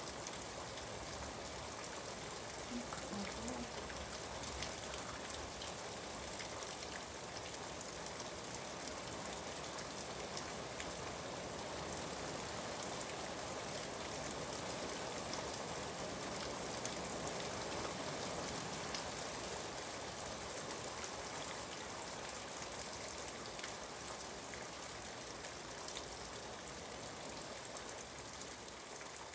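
Steady rain falling: a continuous, even hiss of rainfall with scattered drop ticks.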